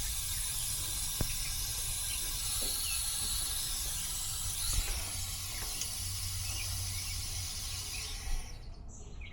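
Nitrogen hissing steadily from the regulator and gauge hoses into a heat pump's refrigerant lines as the system is pressurised for a leak test after a reversing-valve replacement. The hiss stops near the end as the flow is shut off.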